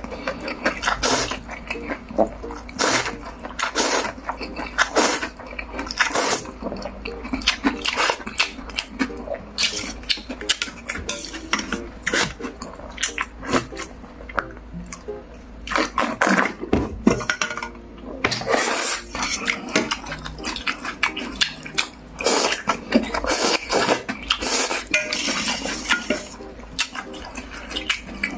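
Eating cold noodles in icy broth from a bowl: slurps and utensils clinking against the bowl, in irregular bursts.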